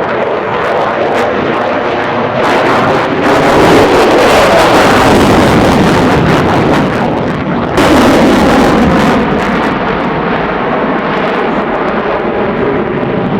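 Fixed-wing aircraft engine noise, loud throughout, jumping suddenly in level about two and a half seconds in and again near eight seconds.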